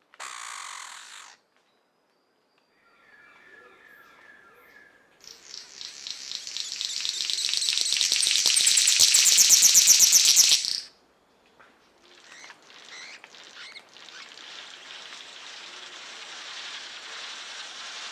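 King-of-Saxony bird-of-paradise giving its rapid, buzzing rattle of a song, which swells in loudness for about five seconds and then cuts off sharply. A short hissing burst comes first, and a steady hiss with a few faint ticks follows.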